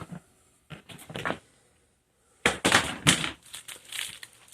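Paper and cardboard packaging of firecracker bricks rustling and crinkling as it is handled and opened, in two spells of handling with small knocks, the second longer and louder.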